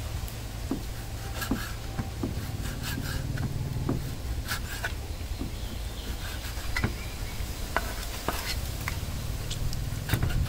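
Irregular light clicks and taps of cooking utensils being worked against a pot or bowl, over a steady low rumble.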